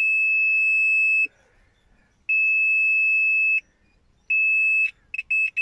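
Digital multimeter's continuity beeper giving a steady high beep that switches on and off as the brake light switch is worked by hand: three long beeps, then a few quick blips near the end. Each beep means the switch's contacts are closed, showing that the switch itself works.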